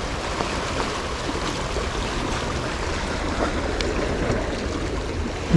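Small sea waves washing steadily over and around shore rocks.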